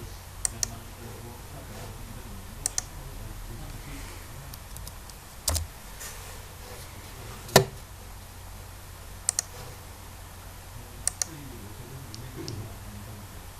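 Sharp clicks, most in quick pairs, repeating every couple of seconds, with two louder single clicks near the middle, over a low steady hum.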